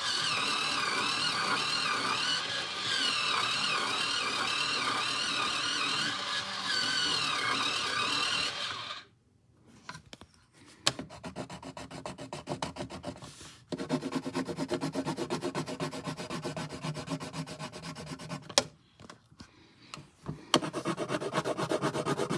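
A pencil sharpener grinding a pencil with a steady, wavering whine, cutting off sharply about nine seconds in. After that, rhythmic pencil strokes scratch and rub on paper, with a few light taps.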